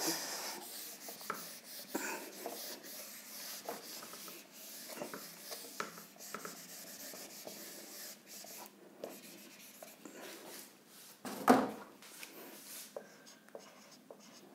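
Whiteboard eraser rubbing across a whiteboard in repeated wiping strokes, with many small ticks as it scrapes the board. A brief louder thump about eleven and a half seconds in. Near the end a marker writes on the board.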